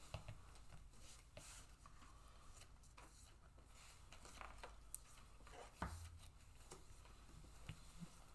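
Near silence: faint rustles and light taps of Magic: The Gathering cards being handled and set down on a playmat, over a steady low room hum, with one slightly louder tap about six seconds in.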